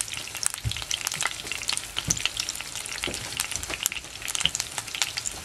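Salmon steak pan-frying in olive oil and its own fat: steady sizzling of the hot oil with many small crackling pops.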